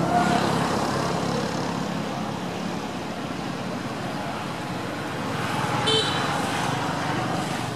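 Steady background hum of road traffic, with a short high-pitched chirp about six seconds in.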